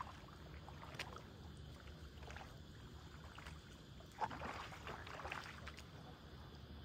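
Small waves lapping in the shallows under a steady low wind rumble, with faint clicks. About four seconds in there is a sharp tick, then a second or so of splashy hiss.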